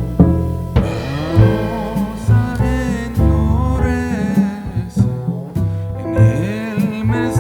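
Background music: a melodic tune over a steady bass line, with bending melody notes.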